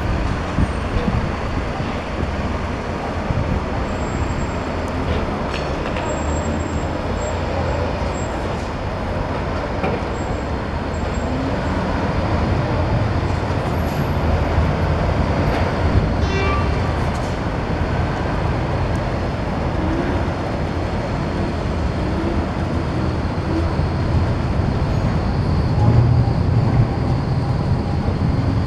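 Volvo demolition excavator's diesel engine and hydraulics running, a steady low rumble that grows somewhat louder near the end, with a few faint clinks.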